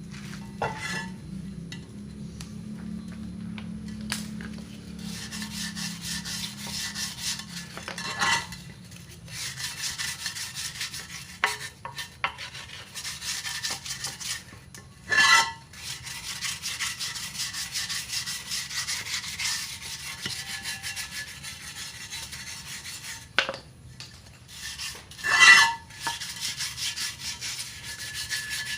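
Fast, repeated scraping and scrubbing strokes on a motorcycle wheel rim, stripping off paint loosened with remover, broken by a few sharp metallic knocks, the loudest about 15 and 25 seconds in.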